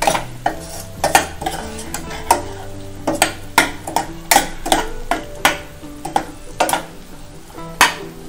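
A spoon scraping and knocking against a stainless steel saucepan as thick mushroom roast is stirred, with a light sizzle as the coconut-milk masala fries dry. The knocks come about once a second, unevenly spaced.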